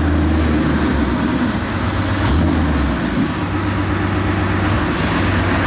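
PTS-M tracked amphibious transport under way, its V12 diesel running with a loud low drone that fades and comes back a few times over a steady rumble of travel noise.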